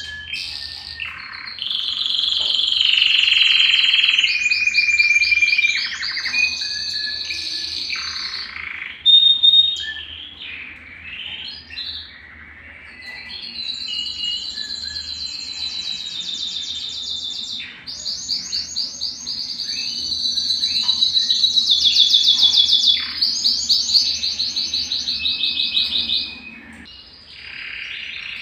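A domestic canary (Belgian canary) singing a long, almost unbroken song of high whistled phrases and fast rolling trills, with short breaks about twelve seconds in and near the end.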